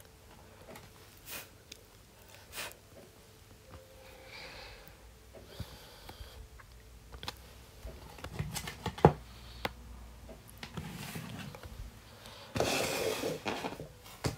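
Handling noise of cosmetics packaging and a cardboard box: scattered light taps and clicks, a sharp knock about nine seconds in, then about a second and a half of cardboard rustling near the end.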